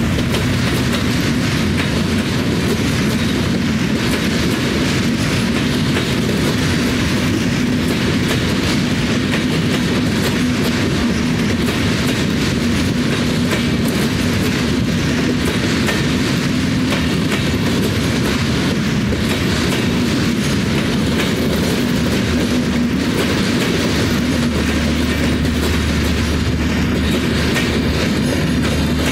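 Bangladesh Railway intercity passenger coaches rolling past close by, their wheels clattering rhythmically over the rail joints over a steady rumble. A low steady hum joins near the end.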